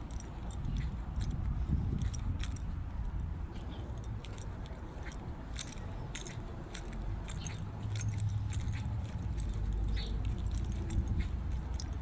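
Irregular light metallic jingling, many small clinks over a steady low rumble.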